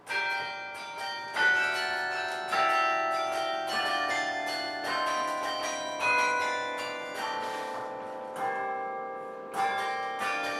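Carillon bells played from the baton keyboard: a tune of many struck bell notes, each one ringing on and overlapping the next.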